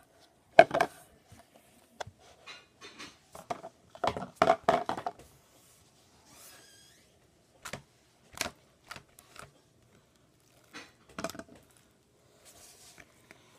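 Blue foam-bead slime with sequins being pressed and squeezed by hand, giving short bursts of crackling, clicking and squishing with pauses between. The loudest cluster comes about four to five seconds in.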